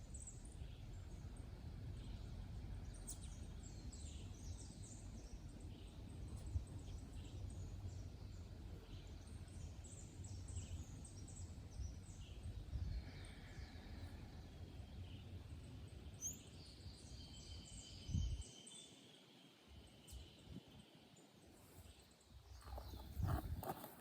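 Wild birds chirping and calling here and there in a forest, over a low rumbling noise that drops away about three-quarters of the way through. A few sharp knocks come near the end.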